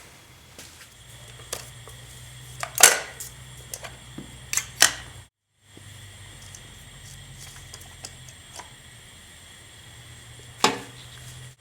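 Hand grease gun worked on the water pump's grease fittings: a few sharp metallic clicks and knocks, the loudest about three seconds in and another near the end, over a steady low hum.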